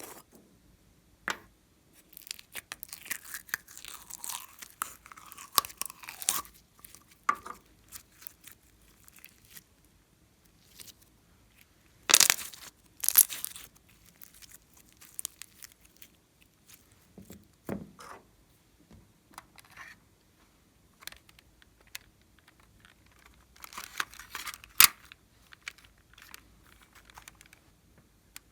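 Slime being squished, stretched and folded by hand, giving irregular sticky crackles, pops and clicks, with the loudest bursts about twelve seconds in and again near the end.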